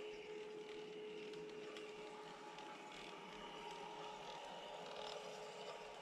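LGB G-scale model electric locomotive running past with its goods train: a faint, steady whine from its motor and gearing over light rolling noise from the wheels on the track.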